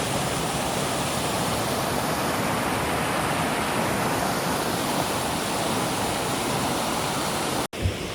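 Mountain stream rushing steadily, a continuous even roar of water. It cuts off abruptly near the end.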